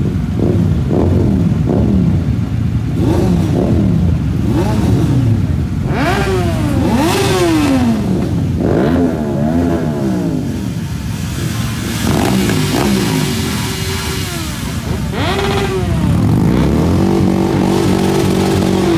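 Several motorcycle engines running together at close range, revved again and again in short throttle blips so that the pitch keeps sweeping up and falling back. Near the end the sound settles into a steady drone.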